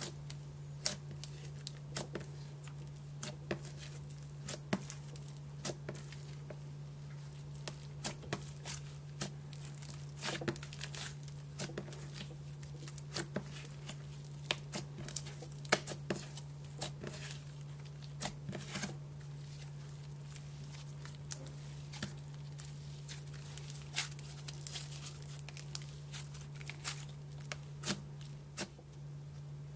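Soft butter slime being squished, stretched and pressed by hand, giving irregular small clicks and pops, sometimes in quick clusters.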